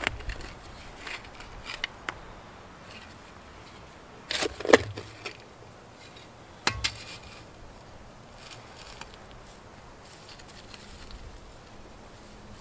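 Spade digging into garden soil and mulch: scattered scrapes and crunches as the blade is pushed in and soil lifted, loudest in a cluster about four to five seconds in, with a single sharp strike near seven seconds, then fainter scraping and rustling.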